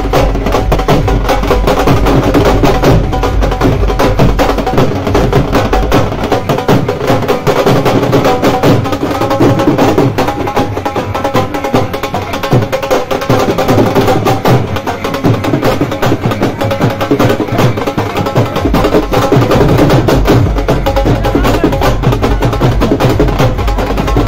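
Dhol drum played in a fast, continuous beat, sharp stick strokes packed closely together.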